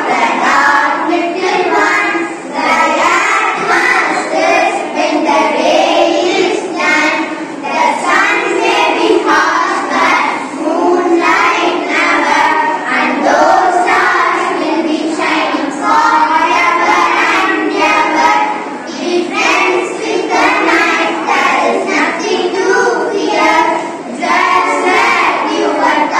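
A group of children singing together, phrase after phrase with only short breaths between lines.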